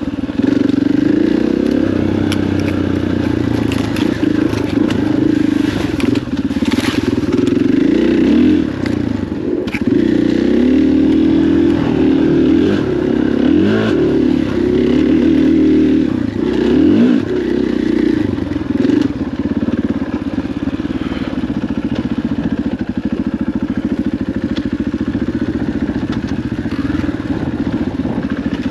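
KTM 500 EXC four-stroke single-cylinder dirt bike engine running under way, its revs rising and falling continually with the throttle. A few sharp knocks and clatter from the bike over rough ground.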